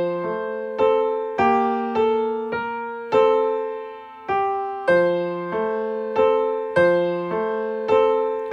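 Piano playing a simple beginner melody in 3/4 time with both hands, single notes and two-note intervals struck at an even, unhurried pace, each one dying away, with one longer held note near the middle. Played soft, as the piece is marked to start.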